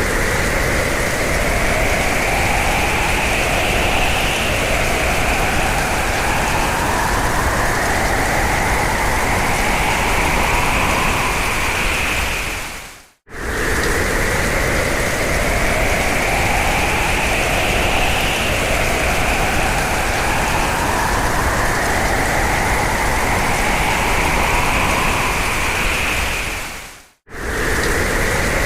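Hurricane-force wind blowing in a dense, steady rush, with whistling tones that glide up in pitch through each gust. The sound cuts out for a split second about 13 seconds in and again near the end, then starts the same pattern over.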